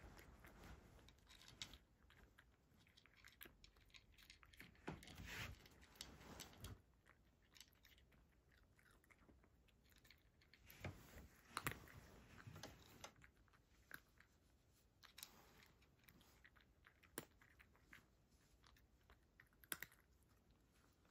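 Cat chewing dry kibble from a shallow dish: quiet, irregular crunching, with louder crunches about five seconds in and again around eleven to twelve seconds in.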